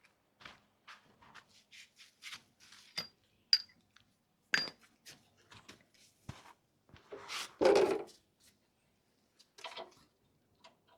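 Steel sockets and hand tools clinking and clattering as they are picked through for an 18 mm socket, a few sharp metallic pings among the clicks and a louder clatter about eight seconds in.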